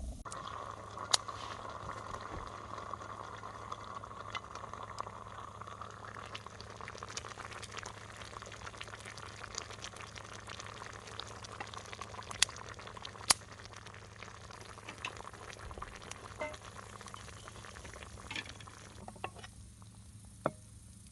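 White wine bubbling and simmering around chicken and potatoes in a mess tin over a wood fire, a steady sizzling hiss with scattered small pops. A few louder sharp pops stand out, about a second in, twice around twelve to thirteen seconds in, and near the end.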